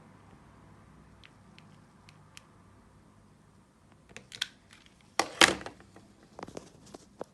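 Handling noise: a few faint clicks, then a cluster of sharper clicks about four seconds in. A louder half-second scuffing noise follows a little after five seconds, then a few more clicks.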